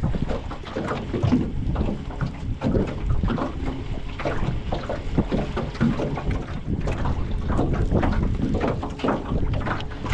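Wind gusting over the microphone on a john boat, with irregular knocks and water slapping the hull.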